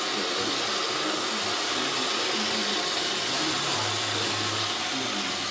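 iRobot Roomba 500/600-series robot vacuum running with a steady, even whirring hiss.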